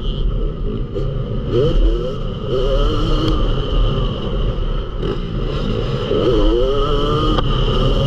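Yamaha YZ250 motocross bike engine on the move, revving up and down repeatedly as the rider works the throttle, with a heavy low rumble of wind and track noise on the onboard microphone.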